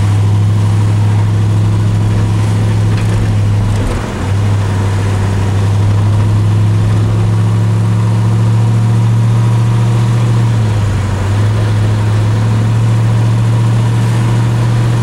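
Big-block 396 Chevrolet V8 of a 1981 Monte Carlo running steadily while cruising, heard from inside the cabin, with its drone dipping briefly twice, about four and eleven seconds in.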